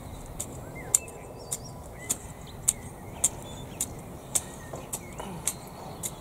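A long-handled garden tool working through damp, lumpy soil to break the clods down, with short sharp scrapes or ticks about twice a second. Birds chirp faintly in the background.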